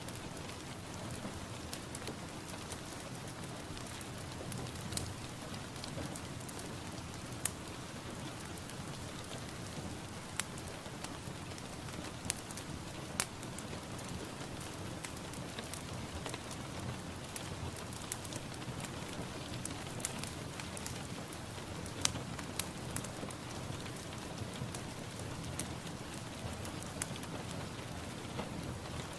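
Steady rain falling, an even hiss with frequent sharp drop ticks scattered through it.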